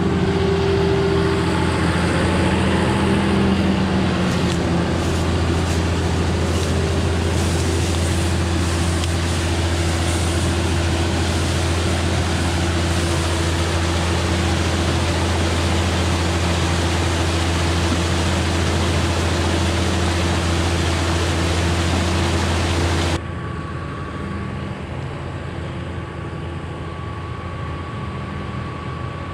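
Tractor engine running steadily to drive a 16-inch centrifugal flood pump, over the rush of water belching out of the discharge hose. About 23 seconds in the sound drops suddenly to a quieter, steady hum of the same pumping heard from farther off.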